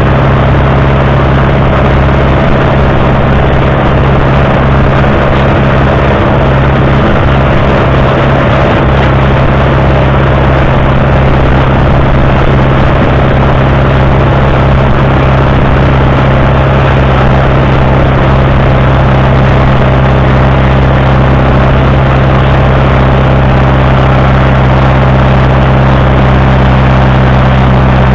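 Fordson Super Major tractor's four-cylinder diesel engine running loud and steady at an even speed while the tractor is driven along.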